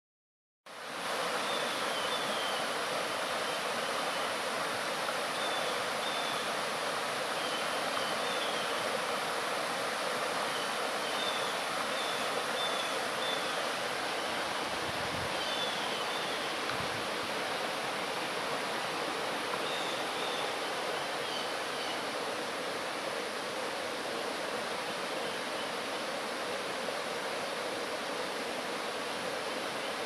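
Shallow, rocky mountain stream rushing steadily over stones. The sound starts about a second in.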